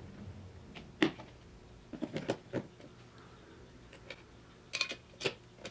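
Light clicks and knocks of a headlamp unit and its mounting ring being handled and seated in the headlight bowl, with the sharpest knock about a second in and a few more around two seconds in and near the end.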